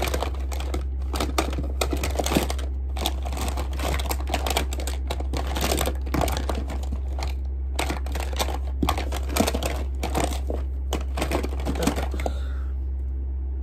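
Rummaging by hand through small plastic makeup items: a busy run of light clicks, rattles and rustling that dies away near the end, over a steady low hum.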